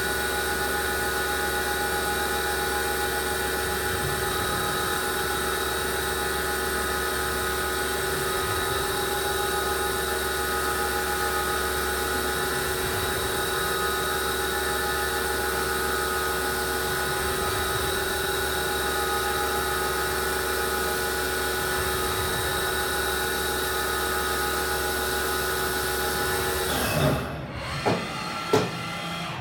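A 1997 Haas VF-9 vertical CNC machining center running with a steady, even whine made of several constant tones over a low hum. The whine cuts off suddenly near the end, followed by a few short clunks.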